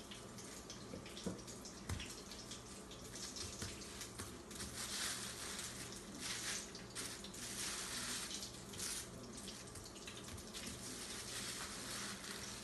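Hot cooking oil sizzling steadily as masa pasteles fry, with a plastic sheet crinkling as dough is handled on the counter, crackling more from about four to nine seconds in.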